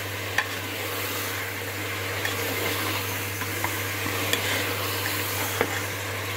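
Mutton and onions sizzling in hot oil in a pressure cooker while a steel spoon stirs them, with a few sharp clinks of the spoon against the pot. A steady low hum runs underneath.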